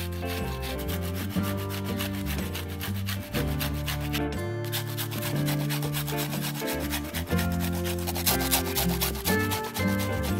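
A red onion grated on a handheld flat metal grater: a steady run of quick scraping strokes.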